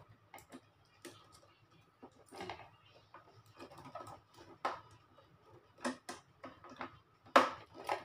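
Irregular clicks and knocks of hands handling a white plastic Brother portable sewing machine, with the loudest knock near the end.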